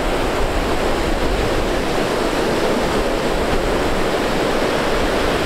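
Ocean surf breaking and washing around, a steady rush, with wind rumbling on the microphone.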